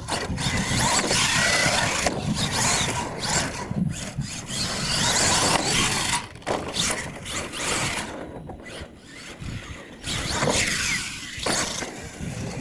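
Radio-controlled monster truck driving hard on dirt: its electric motor and gears whine, rising and falling in pitch with the throttle, over the scrabble of the tyres. It goes quieter for a couple of seconds past the middle, then picks up again.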